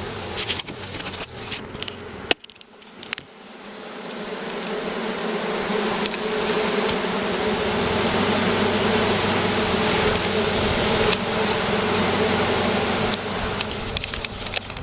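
Package honeybees buzzing en masse in a dense hum that swells after a few seconds and stays loud. A few sharp knocks or clicks come at the start.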